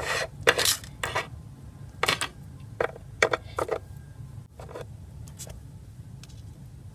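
Littlest Pet Shop plastic toy figure knocked and tapped against a tabletop as it is moved about by hand: about a dozen light, irregular clicks, the loudest in the first second and a half.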